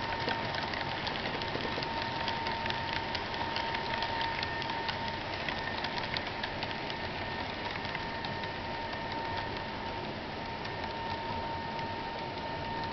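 Model railroad freight cars rolling over the track, their metal wheels clicking rapidly and irregularly over rail joints against a steady hiss. The clicking thins out in the second half. A steady high-pitched tone runs underneath.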